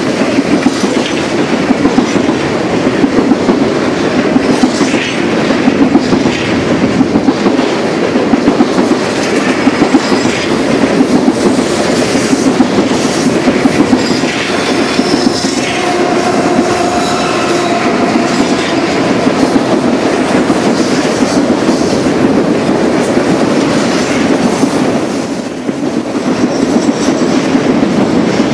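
Freight train cars rolling past steadily, their wheels clicking over the rail joints in a regular clickety-clack. A faint wheel squeal rises on the curve about halfway through.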